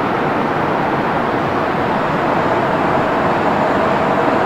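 Steady travel noise of a moving vehicle, an even rumble and hiss with a faint constant tone.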